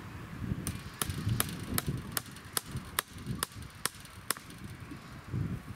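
A hammer drives a fencing staple into a wooden fence post over barbed wire: about ten sharp strikes in quick succession, roughly two to three a second, then they stop.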